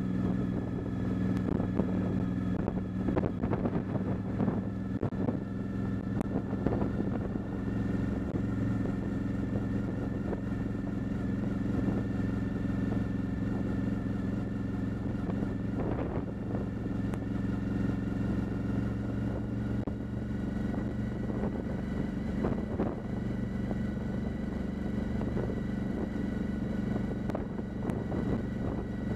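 Motorcycle engine running at an even, steady pitch while cruising at a constant low speed, with irregular buffeting noise over it.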